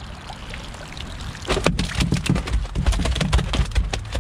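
A wet keep sack full of carp being hauled out of the water and emptied onto a mat on a boat deck: water sloshing and dripping off the sack, then from about a second and a half in a rapid, irregular run of wet slaps and thumps as the sack and fish land and flop on the mat.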